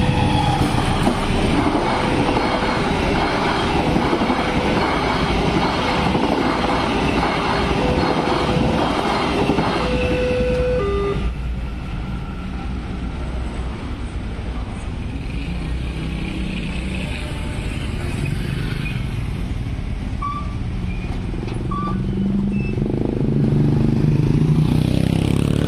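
A train hauled by a KAI CC 201 diesel-electric locomotive passes over the crossing with a rhythmic clatter of wheels on rail, under the crossing's electronic warning sounder alternating between two tones. Both stop about eleven seconds in. After that comes road traffic, two short horn beeps, and motorcycle engines that grow louder near the end as vehicles cross.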